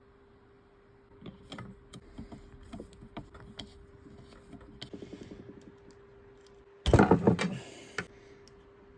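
Small hand tools working on a guitar neck's truss rod nut: a string of separate clicks and taps, then a quick rattle of clicks. Near the end comes a brief, loud burst of mechanical noise lasting under a second, the loudest sound here, under a faint steady hum.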